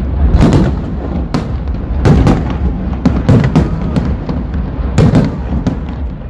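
Fireworks exploding in rapid succession: a dozen or so sharp bangs, some in quick clusters, over a constant low rumble of further bursts.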